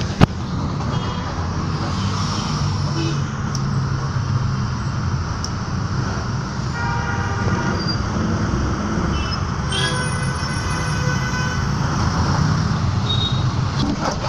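Steady engine and road rumble heard from inside a moving bus, with one sharp knock just after the start.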